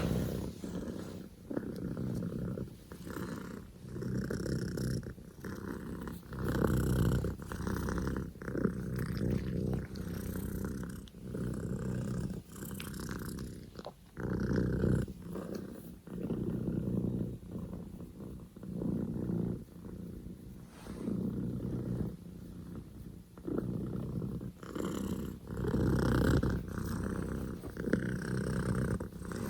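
Scottish Fold kitten purring very loudly, the purr swelling and fading about once a second with each breath in and out.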